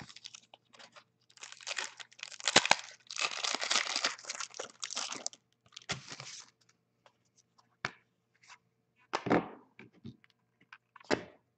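Foil wrapper of a 2014 Panini Certified football card pack being torn open and crinkled in dense bursts over a few seconds, followed by scattered light clicks and rustles of the cards being handled.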